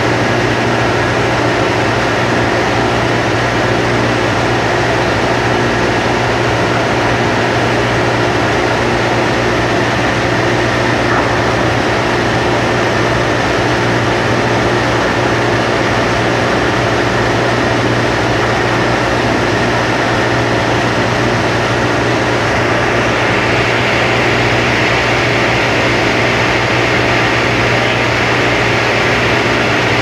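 Steady, loud industrial machinery noise around an aluminium holding furnace: a constant low hum under a broad rushing noise. A higher hiss grows stronger a little over two-thirds of the way through.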